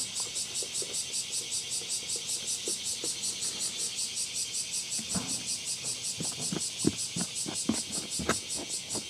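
Insects chirping in a steady pulsing rhythm of about five pulses a second. From about five seconds in, a metal spoon scrapes and ticks through loose rearing soil, with a few sharper ticks near the end.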